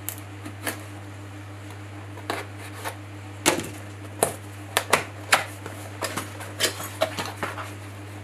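Cardboard box being opened by hand: a knife blade slitting the tape, then a run of sharp clicks and scrapes as the flaps are pried out and folded back. A steady low hum runs underneath.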